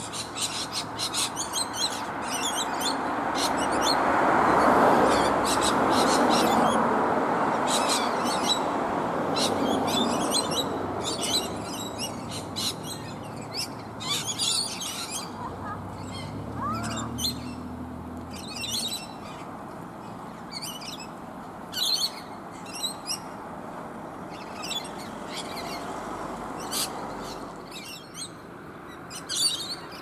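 Rainbow lorikeets feeding, giving many short, shrill chattering calls, one after another. In the first third a rushing noise swells, becomes the loudest sound, then fades away.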